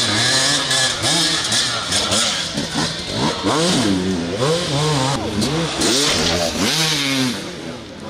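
Enduro motorcycle engines revving, the throttle blipped up and down again and again.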